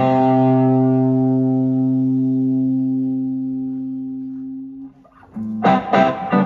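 Live rock band: one sustained note rings for about five seconds, slowly fading, then stops. After a short break the band comes back in with electric guitars.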